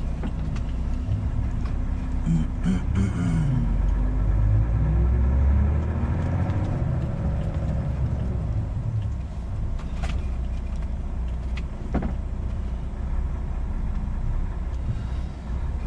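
Semi-truck's diesel engine running, heard inside the cab, its rumble swelling for a few seconds around the middle. Two short clicks sound near the end.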